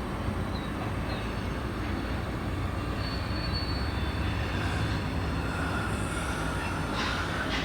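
Union Pacific diesel locomotives moving slowly through a rail yard: a steady low engine rumble, with thin high-pitched wheel squeals coming and going and a short harsher burst near the end.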